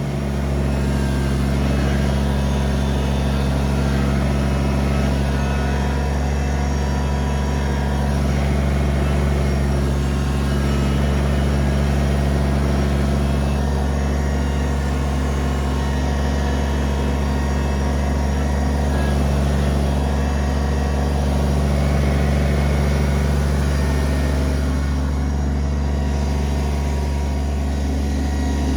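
Kubota BX23S compact tractor's three-cylinder diesel engine running steadily at working speed.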